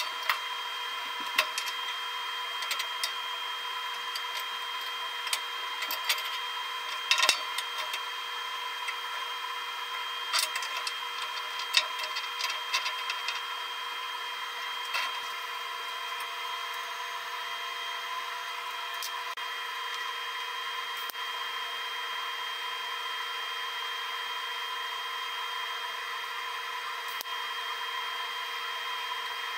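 Metal clamps and a stainless steel exhaust pipe knocked and clinked against a steel fixture table while being clamped down, with scattered sharp knocks over roughly the first half. Under them a steady whine of several constant tones runs throughout, and another tone joins about halfway.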